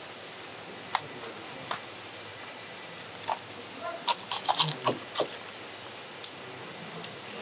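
Kitchen knife cutting up a sea raven on a plastic cutting board: a scattered run of sharp clicks and taps, thickest about four to five seconds in, as the blade goes through the fish's head.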